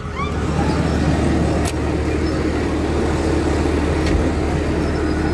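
Komatsu D155 bulldozer's diesel engine idling with a steady low hum, and a single click a little under two seconds in.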